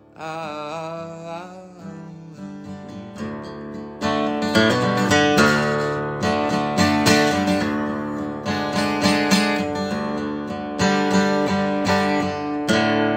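Acoustic guitar strummed in chords, growing louder and busier about four seconds in. A wavering, held sung note trails off over the first second or two.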